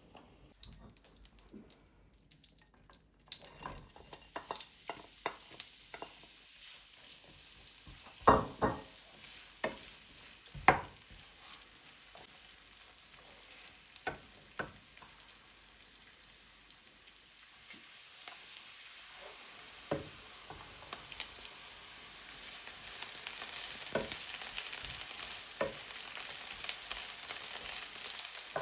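Kitchen utensils knocking and clacking several times, with two sharp loud clacks in the middle. Then food starts sizzling as it fries in a pan, growing steadily louder toward the end, with a few more clinks.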